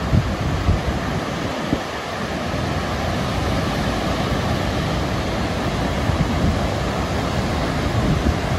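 Ocean surf washing steadily, with wind buffeting the microphone in low, uneven gusts.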